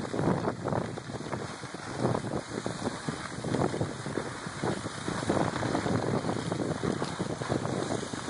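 Wind rushing over the microphone in uneven gusts, mixed with skis scraping over snow in a snowplow.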